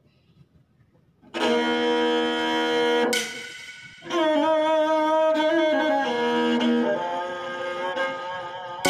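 Instrumental intro music of long held notes: a sustained chord comes in about a second in and breaks off near the three-second mark, then after a short dip a slow melody of held notes begins.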